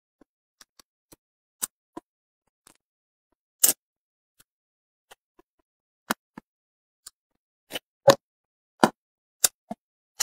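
Close-miked mouth sounds of someone eating braised pomfret: short wet smacks and clicks at irregular intervals, with silence between. The loudest smack comes a few seconds in, and several strong ones follow each other near the end.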